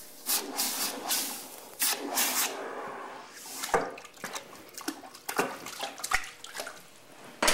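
Hot forged steel in blacksmith's tongs being quenched in a bucket of water, hissing and splashing as it is dipped and worked about. The loudest bursts come in the first two and a half seconds, then it goes fainter with a few sharp clinks.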